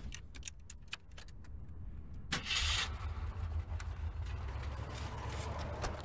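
Keys jingling and clicking, then a little over two seconds in a Jeep Wagoneer's engine cranks, catches and settles into a steady low-pitched idle.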